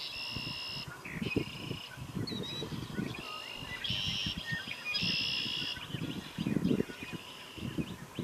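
A songbird singing short, buzzy trills, about five of them in quick succession, each half a second to a second long, with a low irregular rumbling underneath.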